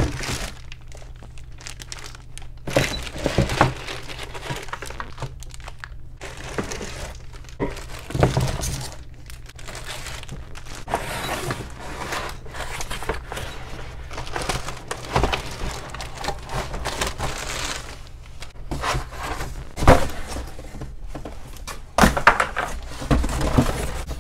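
Plastic wrapping crinkling and cardboard packaging rustling and scraping as pots and pans are unpacked from a box, with a few sharp knocks and thuds now and then.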